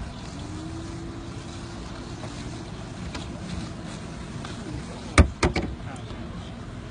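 Steady wind and water noise around a bass boat, then about five seconds in a quick run of three or four loud knocks and splashes as a large largemouth bass is pulled thrashing out of the boat's livewell.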